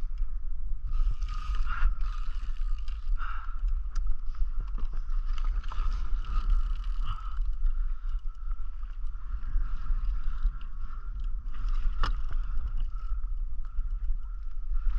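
Ocean water sloshing around a kayak hull over a steady low rumble, with a faint steady high whine throughout. Small scattered clicks of gear handling, and one sharp click about twelve seconds in.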